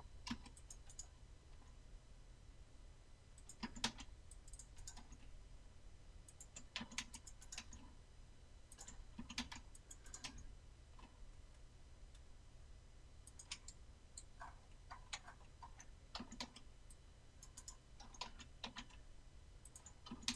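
Faint, scattered clicks of a computer mouse and keyboard keys, coming singly and in small clusters a second or more apart, over a low steady hum.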